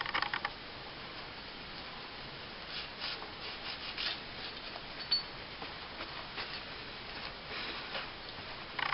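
Soft rubbing and scraping with a few light clicks as small metal pistol parts are handled and wiped clean; a louder scratchy noise stops about half a second in.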